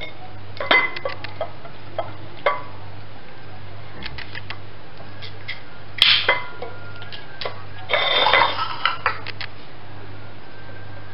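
Kitchen knife clinking and scraping against a ceramic plate while a raw chicken leg is cut up: scattered light clicks, a sharp clink about six seconds in and a longer clatter around eight seconds, over a steady low hum.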